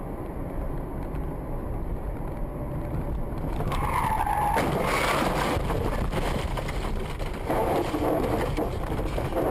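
A car driving, heard from inside, with steady engine and road rumble. About four seconds in there is a short squeal that bends in pitch, typical of tyres skidding as the car swerves.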